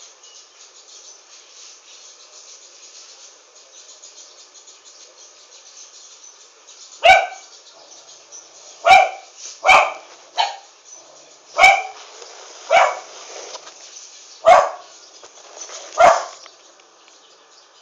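A dog barking: about eight single short barks at uneven intervals, starting about seven seconds in, over a faint steady background hiss.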